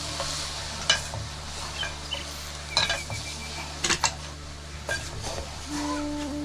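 Food sizzling in a pan while a metal utensil stirs it, knocking and clinking against the pan several times.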